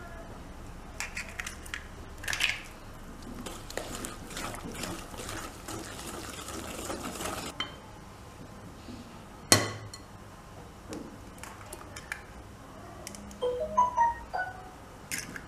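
Wire whisk stirring and scraping through a thick oil, sugar and egg mixture in a glass bowl, with a rapid clicking for several seconds. Then a single sharp knock, an egg being cracked on the bowl's rim, and a few short ringing clinks of metal on glass near the end.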